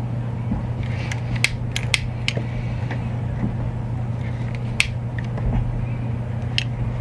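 Scattered sharp clicks of a metal butane lighter being worked by hand as its flame-height adjuster is turned up and down, over a steady low hum. No gas hisses out: the valve pin inside is stuck.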